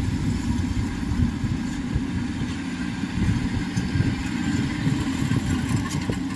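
Rice combine harvester running steadily under load as it cuts lodged rice, with a continuous low engine drone.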